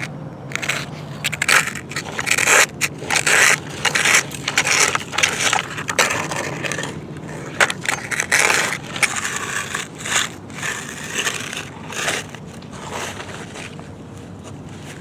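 Toy construction vehicles scraping and pushing through sand and dirt, in irregular gritty crunching bursts that die down near the end.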